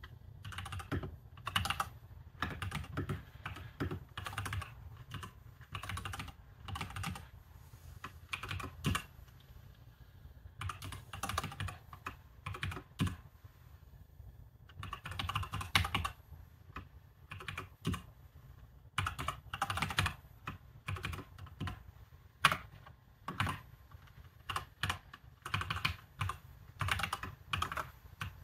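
Typing on a computer keyboard: quick runs of key clicks, broken by pauses of a second or two.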